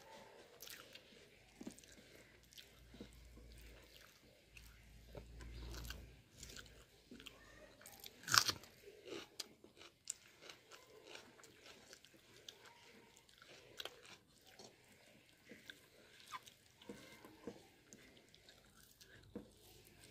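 Close-up chewing and eating sounds of a person eating rice and curry by hand, with scattered small clicks and one much louder, sharp mouth sound about eight seconds in.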